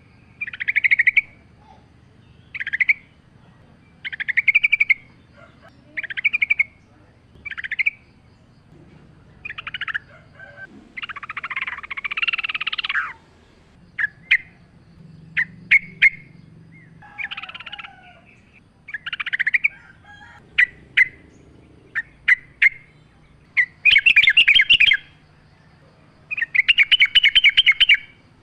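Yellow-vented bulbul (trucukan) singing: short bubbling phrases repeated every second or two, with longer rapid chattering trills near the end. This is a bird-keeper's lure recording meant to provoke other bulbuls to sing.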